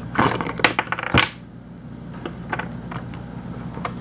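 Packaging being handled: a quick flurry of clicks, rustles and light plastic clatter, ending in a sharp knock a little over a second in, then a few scattered light clicks.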